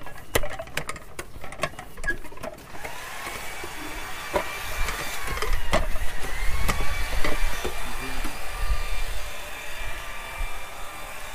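A row of metal Buddhist prayer wheels being spun by hand one after another. For the first few seconds there is a fast clatter of knocks and clicks as the wheels turn on their spindles. After that come thin, wavering squeaks with a click every second or so, over a low rumble.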